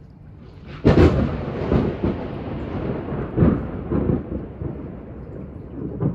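Thunder: a sharp, loud crack about a second in, then rolling rumbles that swell a few more times and slowly die away.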